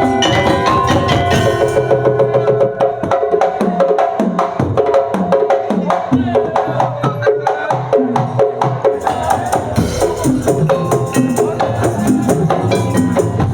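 Madurese tongtong (daul) ensemble playing: a fast, dense rhythm of wooden slit drums, pitched percussion and drums. About two seconds in the bright high shimmer drops out, leaving the drums and wooden beats, and it comes back near the end.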